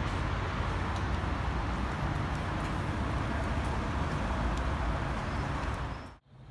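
Steady outdoor city street noise, an even hiss with a strong low rumble, that cuts off abruptly about six seconds in.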